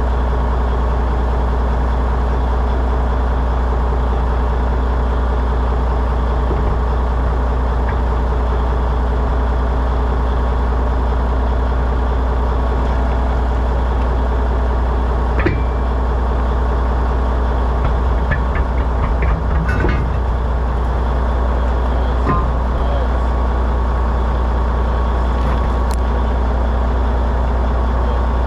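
A heavy engine idling steadily, with a few short clicks and knocks around the middle.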